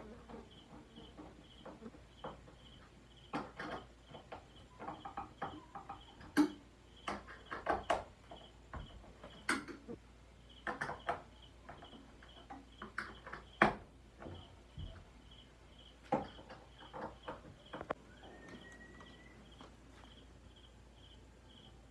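A cricket chirping in a steady pulse of about two to three chirps a second, under scattered knocks and clicks that come in clusters, the loudest about a third and about two thirds of the way through.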